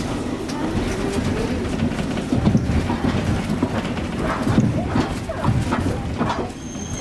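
Hankai Tramway streetcar running on its rails, heard from inside the car: a steady rumble with scattered clicks from the wheels.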